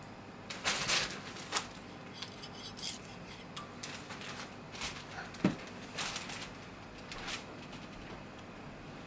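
Kitchen knife and hands working on a plastic cutting board: a scattered series of sharp clicks and taps, the loudest a little past halfway.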